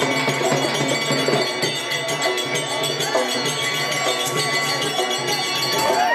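Bayalata folk-theatre music: continuous rapid metallic jingling over steady held drone tones, with a crowd's voices mixed in.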